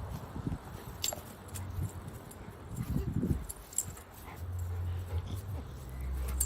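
A dog making short, low vocal sounds, the loudest about three seconds in, over a low steady hum.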